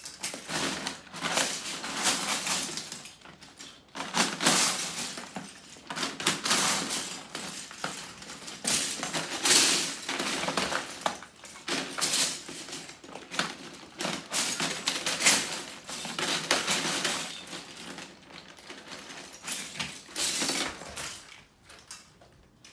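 Loose LEGO bricks rattling and clattering in a plastic bin as a dog digs through them, in irregular bursts that die away near the end.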